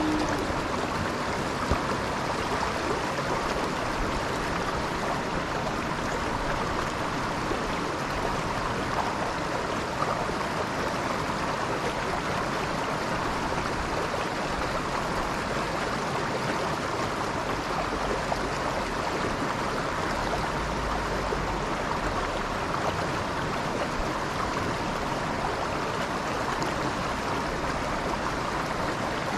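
Mountain stream water rushing and splashing over rocks, a steady, even noise.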